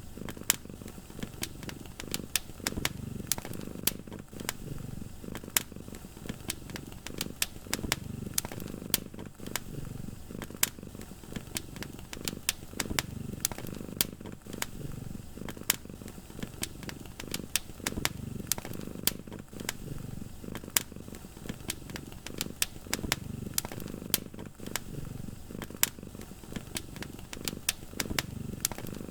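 Wood fire crackling with many sharp pops, over a low purring from a cat that swells and fades every couple of seconds.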